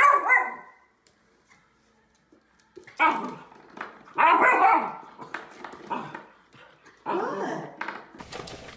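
Puppy barking in short pitched yaps: one sharp bark at the start, then three more bouts of barking spread over the next several seconds with quiet gaps between.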